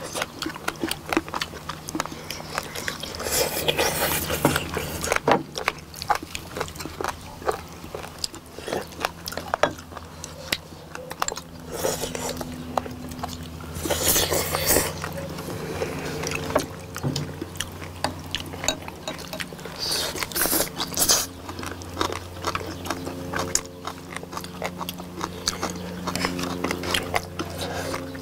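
Close-miked mukbang eating sounds: chewing and biting into braised warty sea squirts (mideodeok) and noodles in spicy sauce, many small wet clicks and smacks. A few longer slurps stand out about three seconds in, in the middle and near two-thirds of the way through, with occasional clinks of chopsticks and tongs on the dishes.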